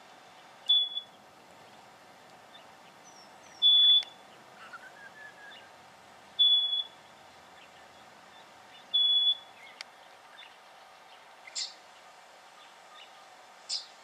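Black honeyeater calling: four short, high, pure whistled notes, one every two and a half to three seconds, followed by a few brief sharp chips about two seconds apart.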